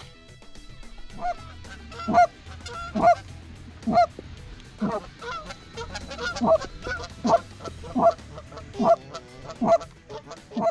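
Repeated goose honks, about one a second, starting about two seconds in.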